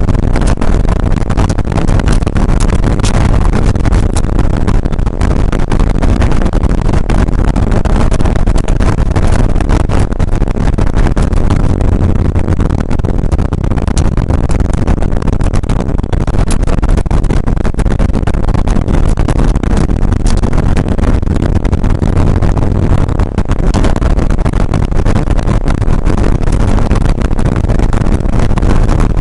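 Air-cooled 3.0-litre flat-six of a 1981 Porsche 911SC rally car running hard at speed, heard loud from inside the cabin, its note swelling and easing with the throttle, over constant tyre and road noise.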